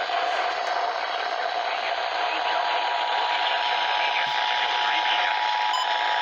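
Radio static: a steady hiss of weak broadcast reception. A faint steady tone joins it about two and a half seconds in.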